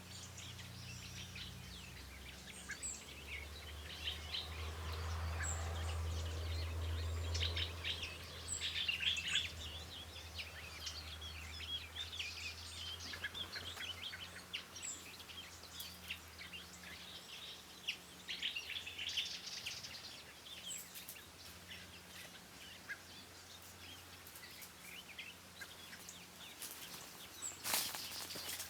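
Several wild birds chirping and singing in a forest chorus, with many short quick notes. A low rumble swells and fades in the background a few seconds in, and a few sharp clicks come near the end.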